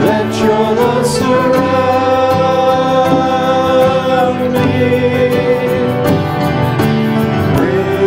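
Slow worship song sung with long held vocal notes over instrumental accompaniment.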